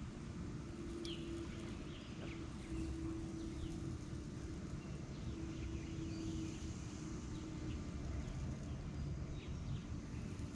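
Birds chirping now and then over a steady low rumble, with a faint hum that comes and goes.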